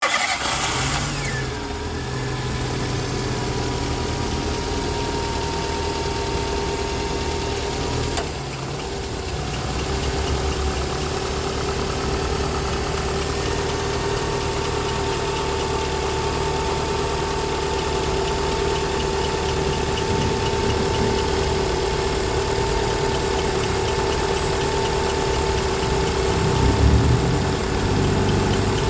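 2014 Renault Sandero engine idling, with a steady whining chirp from the accessory drive belt whose cause the owner cannot find. A sharp click about eight seconds in.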